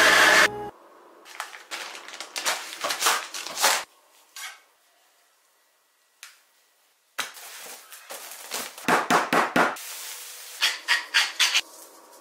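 A food processor whirs briefly and stops. It is followed by clusters of sharp knocks, the fastest a run of about eight in quick succession: a chicken breast being pounded flat under plastic wrap on a wooden board.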